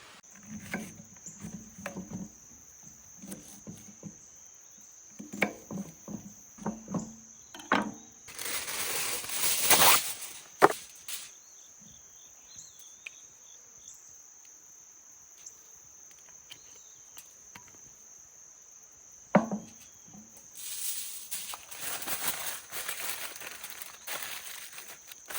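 Insects trilling steadily on one high note throughout. Over it come scattered knocks and clatter in the first several seconds, a loud burst of hissing noise about eight seconds in ending in a sharp click, another click later, and a longer stretch of hissing near the end.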